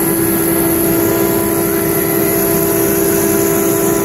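BCAM CNC router's spindle motor running at a constant high speed: a steady, high-pitched motor whine with overtones that does not change.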